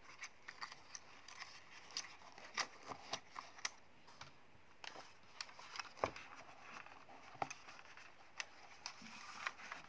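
Irregular, fairly quiet plastic clicks and taps, a dozen or so, from handling a small folding quadcopter and its remote controller as its arms are folded and both are set into a foam-lined case.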